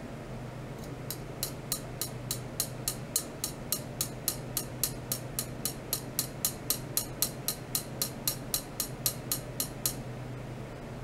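Rapid, regular high-pitched ticking, about three and a half ticks a second, from ultrasonic probe apparatus on a stainless rod driven by a function generator, starting about a second in and stopping near the end. A steady low electrical hum runs underneath.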